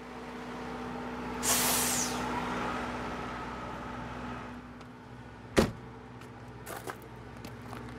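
A vehicle idling with a steady hum, a short hiss about a second and a half in, and one sharp slam of a door a little past halfway, followed by faint scattered taps and clicks.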